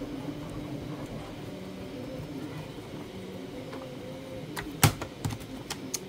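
Quiet hand work as a screw is turned by hand with a Phillips screwdriver into the 3D-printed plastic fan mount. About five seconds in come a few sharp clicks of the screwdriver and small metal hardware being handled, one louder than the rest.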